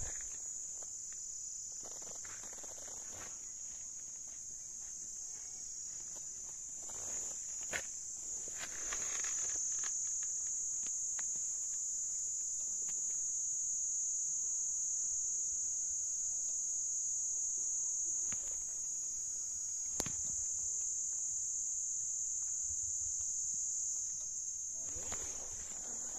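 Insects shrilling in a steady, high-pitched drone, with a couple of faint knocks.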